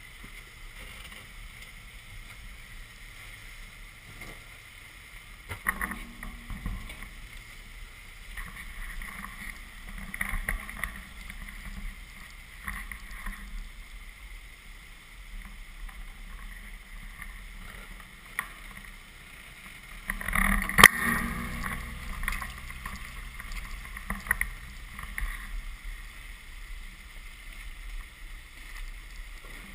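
Jeep Cherokee XJ engine running at low speed as it crawls down a rocky ledge, with tyres crunching over loose rock and scattered knocks. A sharp bang about two-thirds of the way through is the loudest sound.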